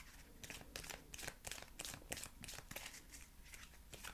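A deck of tarot cards being shuffled by hand: a faint run of soft, irregular card flicks and slaps, a few a second.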